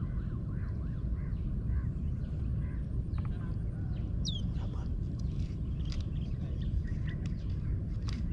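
Outdoor bird calls: a run of short rising-and-falling chirps over the first two or three seconds and a sharp downward whistle about four seconds in, with a few clicks later, all over a steady low rumble.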